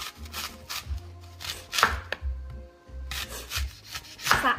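Kitchen knife slicing a whole apple into rounds on a wooden cutting board: a series of crisp cuts through the fruit and taps of the blade on the board, with a short pause about halfway through.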